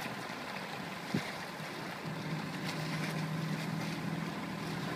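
Small outboard motor running at a steady pitch, its hum coming in about two seconds in, over wind and water noise.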